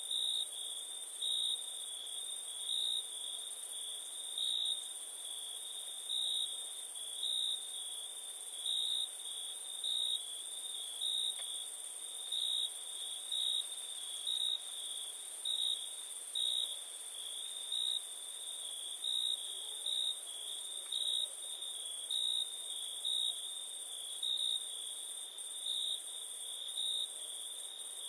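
Night insect chorus of crickets: a continuous high trill that swells into louder pulses a little more often than once a second, over a steady high-pitched hiss of other insects.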